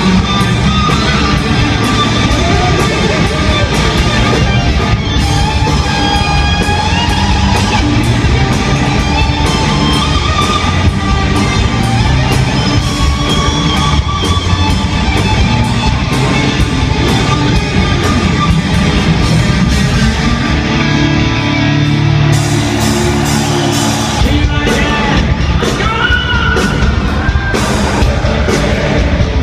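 Hard rock band playing live: loud electric guitars and drums with singing, heard from within the arena crowd.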